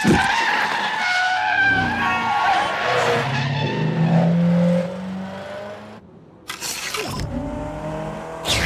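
Car-chase tyre squeals in long wavering tones over a revving car engine. The noise drops away briefly about six seconds in, then comes back suddenly with more squealing.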